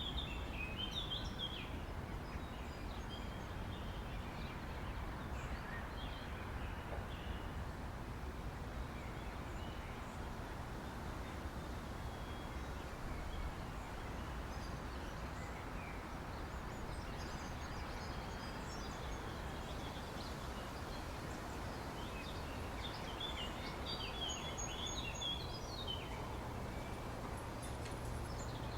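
Outdoor park ambience: a steady low background rumble with birds chirping over it, more chirps just after the start and again near the end.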